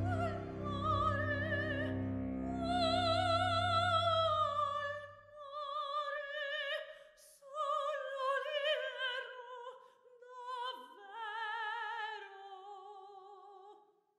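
Operatic soprano singing an aria with a wide vibrato over a low sustained accompaniment. The accompaniment drops away about five seconds in, and the voice carries on alone in slow phrases that step downward in pitch.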